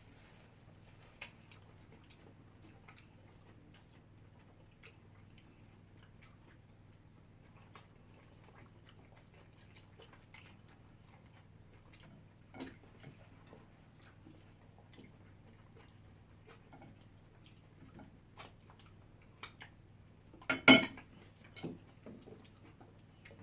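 Quiet mukbang eating sounds: faint chewing and mouth clicks with scattered light clinks of dishes and cutlery over a low steady hum. Near the end comes a short, sharp clatter, the loudest sound.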